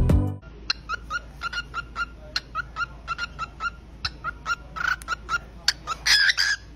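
Small pet parrot chirping in a rapid series of short calls, several a second, breaking into a louder, harsher cluster of calls near the end.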